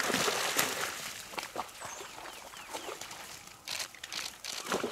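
African wild dogs splashing through and leaping across a shallow muddy pool, the splashing loudest right at the start. A few short high chirps are heard in between.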